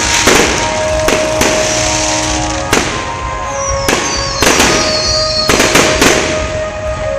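Aerial fireworks exploding in quick, irregular succession, about a dozen sharp bangs with crackle between them, over music with held notes.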